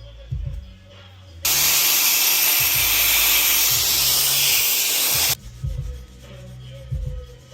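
A steady hissing spray, like an aerosol or air jet, starts about a second and a half in and cuts off suddenly about four seconds later, over background music with a low, regular beat.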